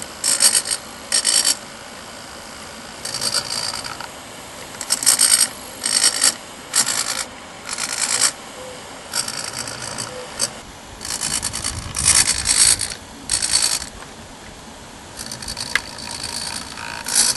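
Small hobby servos of a pan-and-tilt camera mount whirring in about fifteen short, irregular bursts as they swing the FPV camera, over a steady hiss.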